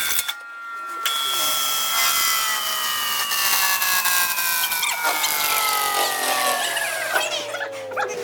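Metal-cutting machine tool at work: a rough cutting noise with a high whine that slowly falls in pitch, after a short break just under a second in.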